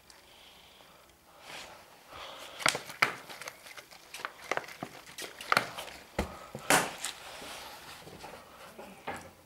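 Foam air filter element being squeezed and worked by hand in a container of petrol, giving irregular wet squelches and splashes, the sharpest between about two and a half and seven seconds in.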